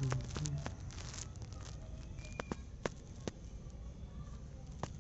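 Scattered light clicks and crackles of a plastic engine-oil bottle being handled as oil is poured into a motorcycle engine's filler, over a steady low background rumble.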